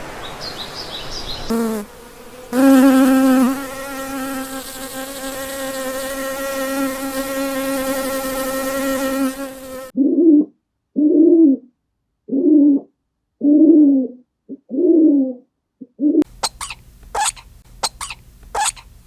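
A long steady buzz that grows slowly louder, like a flying insect. It cuts off and is followed by six short animal calls that bend in pitch, with silence between them, then a run of quick sharp chirps.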